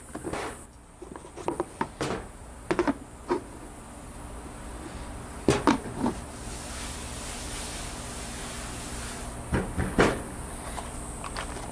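Several sharp knocks and clunks of things handled on a stainless steel table, then a hand rubbing flour across the bare steel top with a steady brushing hiss, with a few more knocks near the end.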